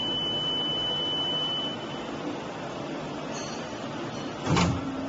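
Plastic injection moulding machine running with a ketchup-cap mould clamped shut: a steady machine noise, with a high steady whine that stops about two seconds in. About four and a half seconds in comes one brief loud burst as the clamp begins to open the mould.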